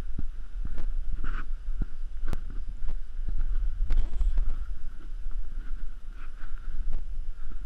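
Wind buffeting a GoPro Hero 3 Black's microphone as a steady low rumble, with scattered knocks and clicks from the wearer's footsteps on a muddy grass path.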